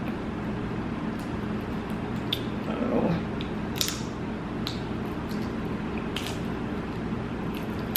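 Snow crab leg shell being picked and pried apart to dig out the meat: scattered small clicks and cracks of shell, with a brief louder sound about three seconds in, over a steady low hum.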